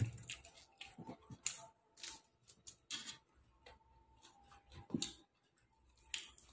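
Someone eating with the mouth close to the microphone: irregular soft clicks and smacks of chewing, spaced unevenly a fraction of a second to a second apart.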